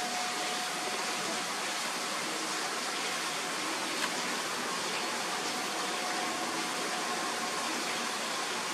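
Steady, even hiss of outdoor background noise, with a single short click about four seconds in.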